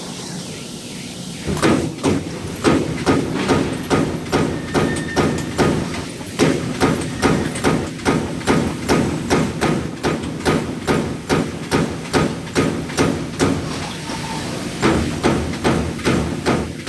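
Amada CNC punch press punching sheet metal: a rapid, even series of sharp metallic punch strokes, about three a second. They start about a second and a half in, after a short pause.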